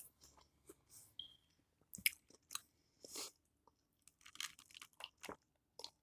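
Quiet eating sounds: a person chewing food with scattered short crunches and mouth clicks, then sips from a glass of iced drink in the second half.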